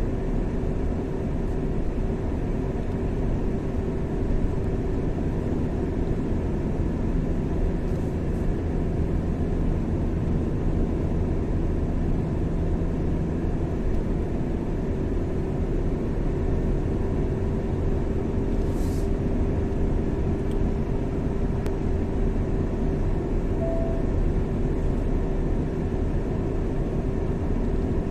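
Steady road and engine noise of a car driving along a highway, with a constant low hum.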